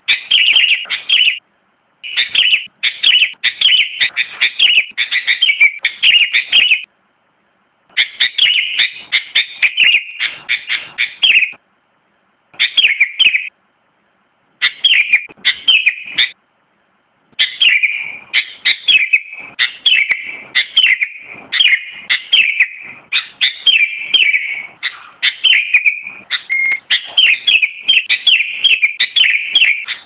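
Sooty-headed bulbul singing: runs of quick, chirpy notes in phrases of one to five seconds, broken by short pauses.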